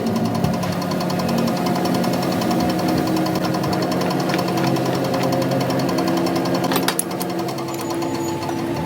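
Metal lathe running, a steady motor hum with a fast, even rattle from the work turning against the tool. A couple of sharp clicks come about seven seconds in, and part of the hum drops away soon after.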